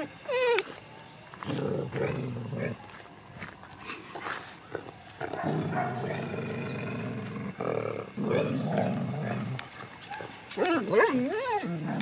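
Dogs growling in several low, rumbling stretches of a second or two each, with a brief high cry just after the start and a burst of high, wavering cries near the end.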